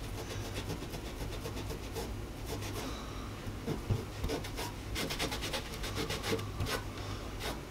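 A damp microfibre rag scrubbed back and forth over a rusted steel glove-box door, in quick repeated rubbing strokes that wear the fresh pinstripe paint down.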